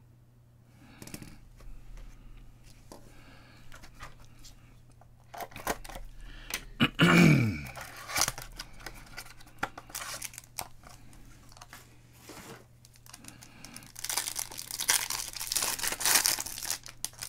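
A foil trading-card pack wrapper being torn open and crinkled by hand. There is a loud tear about seven seconds in and a stretch of heavy crinkling near the end.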